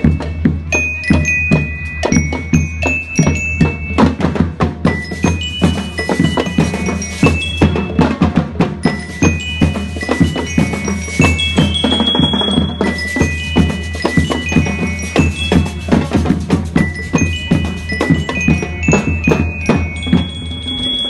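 Marching band playing: snare and bass drums beat a fast, steady rhythm under a ringing melody from bell lyres.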